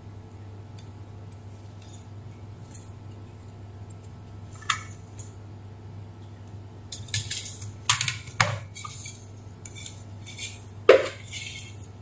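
Metal tweezers clicking, clinking and scraping against a wire jumper and components on a circuit board while a supply line is being disconnected. The clicks come scattered and grow thicker in the second half, the sharpest one near the end, over a steady low hum.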